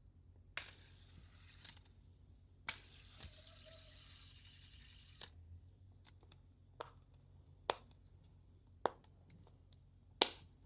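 A fidget toy being handled: two stretches of rustling or scraping in the first half, then four sharp clicks about a second apart.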